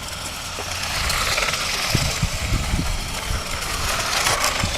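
Toy remote control cars driving, their small electric motors whirring and wheels rushing over the ground, getting louder about a second in.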